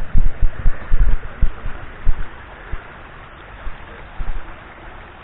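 Steady rushing of a small waterfall, with several low thumps in the first two seconds and a few fainter ones later.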